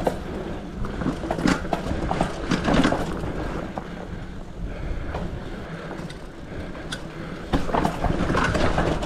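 Fat-tire bike rolling over a rough trail: a steady rumble from the wide tyres, with scattered clicks and knocks from the rigid bike as it takes hits.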